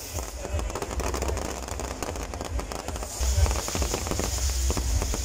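Firecrackers going off: a rapid, irregular string of small pops and cracks, joined by a steady hiss from about three seconds in.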